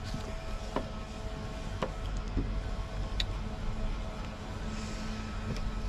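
Steady low background hum and rumble of boatyard machinery, with a faint steady tone over it and a few light clicks from tools being handled on the bench.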